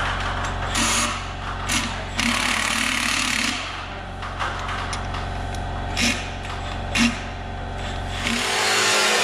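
Cordless ratchet running in short bursts, with one longer run of about a second and a half, over a steady low hum. Near the end the sound gives way to a steady, louder rushing noise.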